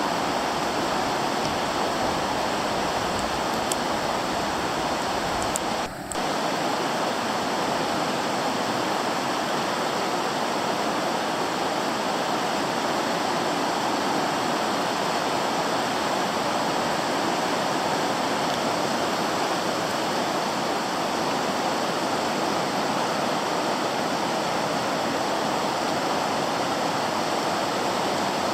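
The steady rush of the South Fork Eel River running high and fast at minor flood stage, with a brief dip in level about six seconds in.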